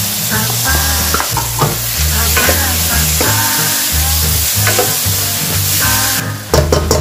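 Julienned turnip and carrot sizzling in a hot wok as they are stirred and tossed with a wooden spatula, with a few sharp knocks near the end. Background music plays along.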